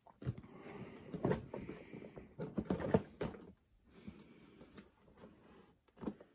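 A cardboard toy box being handled and turned over on a cutting mat: scattered taps, knocks and rustles, the loudest a little over a second in and around three seconds in, then softer handling with one more knock near the end.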